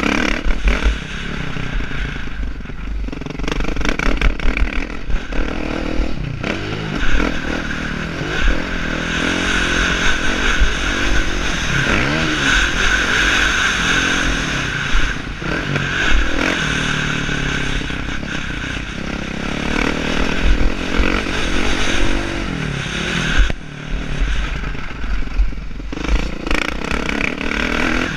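Motocross dirt bike engine revving up and down, rising and falling in pitch again and again as it is ridden over a dirt track, heard from a helmet-mounted camera with wind rumbling on the microphone. The throttle briefly drops off about five seconds before the end.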